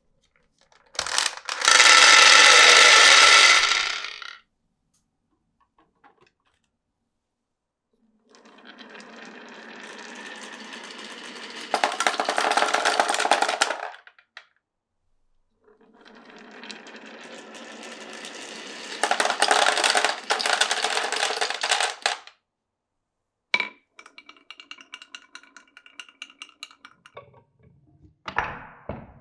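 Marbles rolling along a marble run: a loud ringing roll near the start, then two long rolls that grow louder over about six seconds each. Near the end comes a quick run of small clicks and clacks as the marbles tap along the track.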